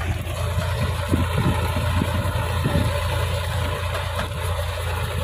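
Solis 4515 4WD tractor's diesel engine running steadily while pulling a plough through soil, with a few low thumps between one and three seconds in.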